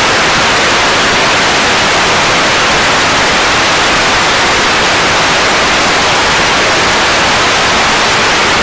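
Loud, steady television static: the hiss of an untuned analog TV.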